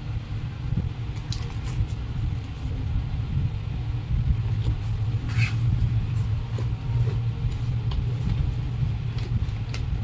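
Steady low rumble with a few faint clicks scattered through it.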